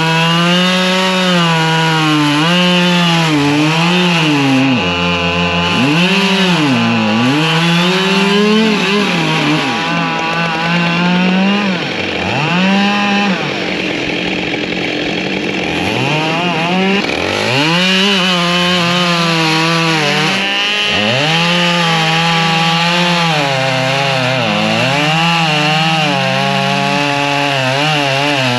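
Two-stroke chainsaw cutting firewood at high revs. Its engine pitch dips and climbs back again and again, briefly sinking low around five seconds in and again in the middle.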